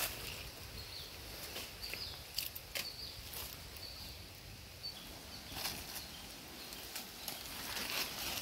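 Scattered rustles and knocks of dry sticks and fallen leaves as flour-coated tender coconuts are set on a small wood fire. Short high bird chirps come several times in the first half.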